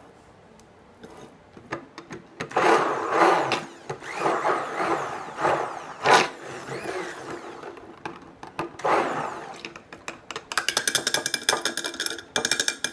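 Stick blender run in short bursts in raw soap batter, with several separate runs and then a longer, rapidly pulsing run near the end that cuts off sharply.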